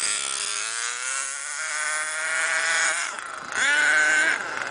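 HPI Savage 25 nitro RC monster truck's small two-stroke glow engine at full throttle, a high buzzing whine that climbs steadily in pitch. About three seconds in the throttle is let off for a moment, then it revs sharply up to a higher pitch and dips again near the end.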